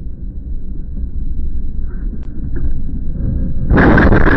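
Low road and engine rumble inside a moving car, then, nearly four seconds in, a sudden loud crash noise that keeps going: the car colliding.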